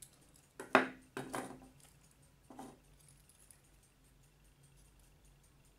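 A metal clock movement and small tools being handled: a few sharp metallic clinks and knocks, the loudest about a second in, another near the end. Underneath, the platform escapement of a Soviet navy ship clock ticks fast and faintly, about five ticks a second.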